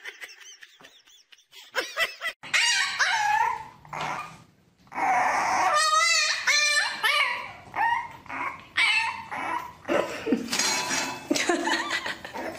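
French bulldog puppy barking and whining in a run of high calls, some of them wavering in pitch, starting about two seconds in.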